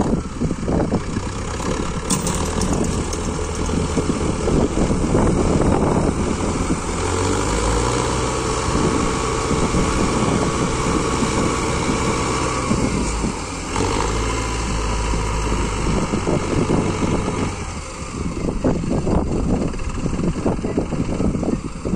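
Tractor diesel engines running under load while towing a stuck combine harvester out. The revs rise twice, each time for a few seconds.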